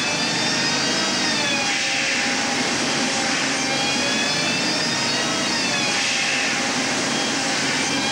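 Film snow-effect cannons blowing fake snow with air: a steady rush of air with a faint whine that wavers slightly in pitch.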